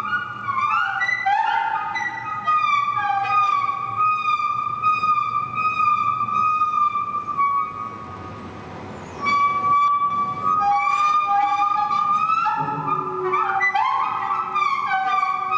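Wheels of a Wuppertal Schwebebahn GTW 72 suspended monorail car squealing as it rounds the tight turning loop at the end of the line: a shrill, multi-pitched squeal with pitches sliding up and down. About seven seconds in it drops to a quieter hiss for a moment, then the squeal returns.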